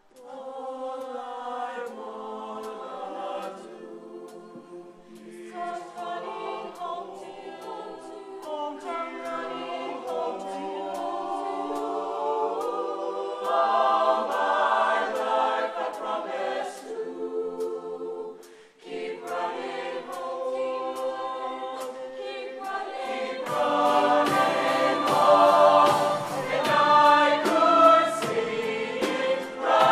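A mixed-voice show choir sings sustained chords in close harmony. About two-thirds of the way in, the sound fills out and a rhythmic beat of sharp hits joins the voices.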